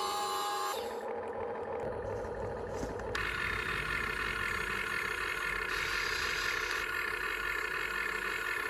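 Small electric motors and gearboxes of a toy remote-control excavator whining steadily, the pitch changing about a second in and again about three seconds in.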